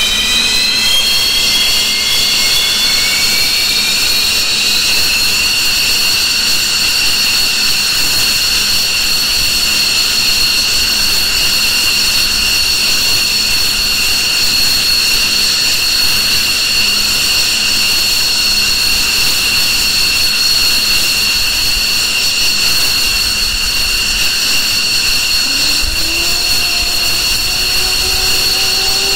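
F-15 jet engine whine. Its high tones rise in pitch for the first few seconds as the engine spools up, then hold as a steady, loud high whine. Near the end a second, lower tone starts rising.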